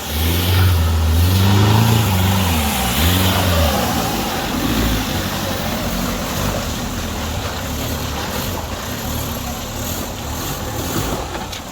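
Off-road 4x4 engine revving up and down several times in the first few seconds, then running on more steadily under a constant rushing noise.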